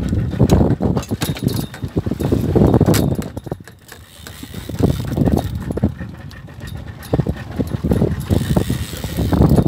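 Wind buffeting the microphone and the rumble of a small boat riding a choppy sea, coming in gusts with scattered clattering knocks; it drops away briefly about four seconds in.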